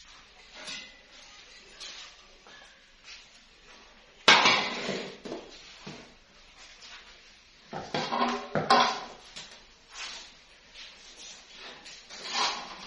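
Cooking pots and utensils being handled, clanking: a sharp clank about four seconds in, a quick run of knocks around eight seconds, and another clatter near the end.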